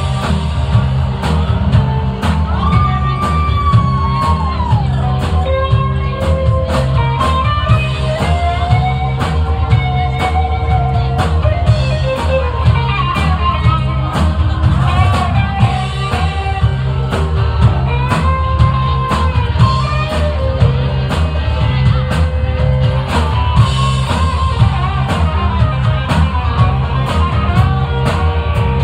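Live rock band playing: electric guitars, bass and a drum kit keeping a steady beat, with a melodic line that bends in pitch over the top.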